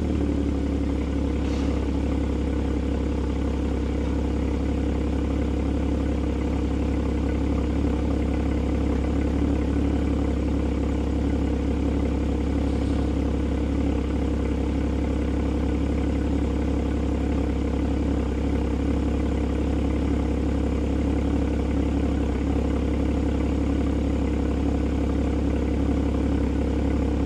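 Porsche Boxster (981) flat-six engine idling steadily just after a rev has died away.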